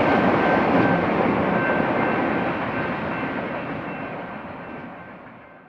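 Freight train of autorack cars rolling past on the rails, the rumble of the wheels fading steadily away as the tail of the train goes by. The sound dies out near the end.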